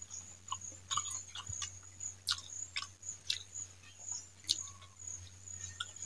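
Close-miked eating sounds: wet chewing, lip smacks and sharp mouth clicks as rice with fried greens and potato curry is mixed by hand and eaten, about a dozen clicks scattered irregularly. A faint steady high whine runs underneath.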